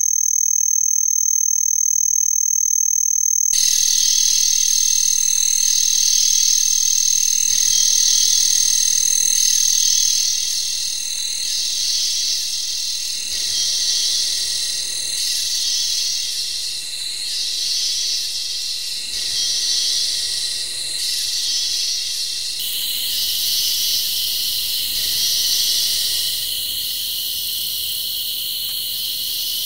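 Recorded cicadas singing, high-pitched: a steady single-tone buzz, joined a few seconds in by a chorus that swells and fades about every second and a half. The steady tone drops out about midway, and a denser, continuous cicada buzz comes in near the end. These are cicada recordings used as a tinnitus-masking sound.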